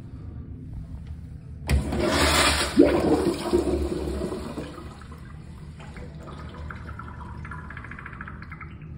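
Kohler Freshman urinal flushed through its chrome flush valve: a sudden rush of water starts about two seconds in, stays loud for about three seconds, then dies away.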